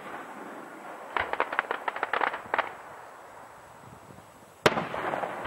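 Aerial firework shells bursting: a rapid run of sharp cracks about a second in, lasting about a second and a half, then one loud boom near the end that rolls on in echo.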